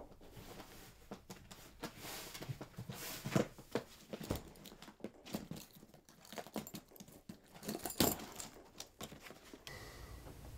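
Rustling, bumps and irregular clicks of a leather suitcase being handled and its strap buckle worked open, stopping shortly before the end, where a steady low hum takes over.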